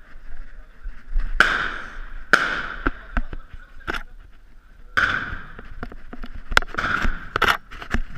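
Gunfire: several single shots at irregular intervals, each followed by a long echo. The loudest come about a second and a half in, at two and a half seconds, at five seconds and near seven seconds, with sharper, smaller cracks between them.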